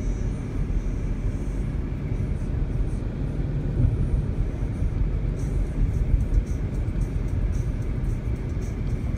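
Steady low rumble of a car's engine and tyres on the road, heard from inside the cabin while driving at low speed.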